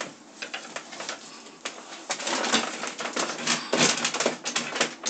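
Rustling and clatter of hands handling a chair cushion and small items on a table: a quick run of small clicks and taps, busiest in the second half.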